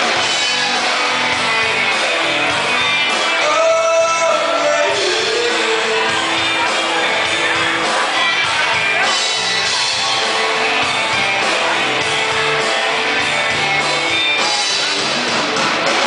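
Loud music with a singing voice plays steadily, with shouts from onlookers mixed in.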